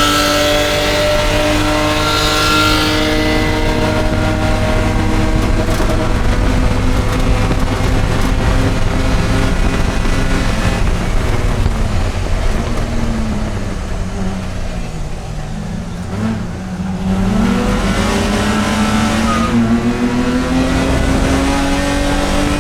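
Race car engine running hard at high revs. About two-thirds of the way through, the revs fall and the sound drops off, then the pitch climbs again as the car accelerates.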